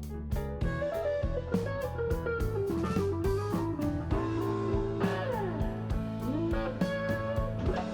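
Background blues music: electric guitar over a steady drum beat, with bending, sliding guitar notes about five to six seconds in.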